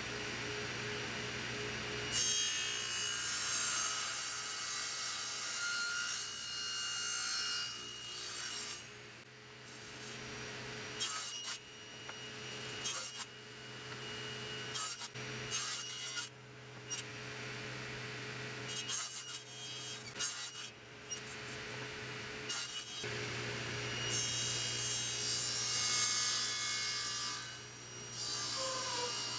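Table saw running and cutting wood: a long cut a couple of seconds in, shorter cuts and gaps in the middle, and another long cut near the end, over the steady hum of the saw's motor.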